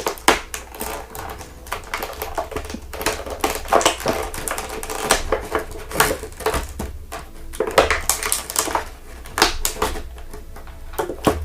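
Stiff plastic toy packaging being handled: a dense run of irregular clicks and crinkles.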